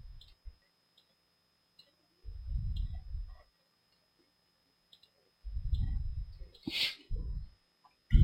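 Faint computer mouse clicks about once a second, between a few louder low, muffled rumbles on the microphone, with one brief hiss about seven seconds in.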